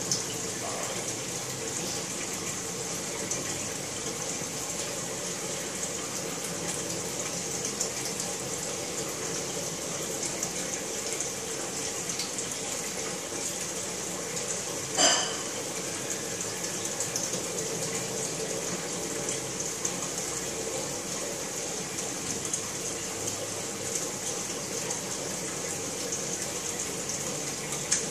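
Aquarium sump and return water running, a steady gushing trickle. There is one brief sharp sound about halfway through.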